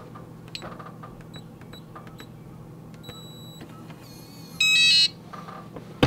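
Electronic beeps from an RV security keypad and door lock: a few short button beeps, one longer beep, then a brief multi-note chime that is the loudest sound. The door is being opened while the alarm is armed, which sets off the entry delay.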